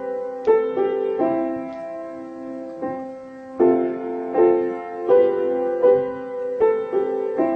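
Slow, gentle solo piano music: notes and chords struck about every three quarters of a second, each ringing and fading.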